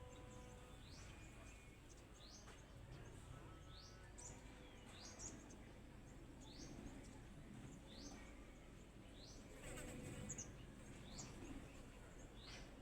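A small animal's high chirp, sweeping upward, repeated about once every second and a quarter over faint background hum.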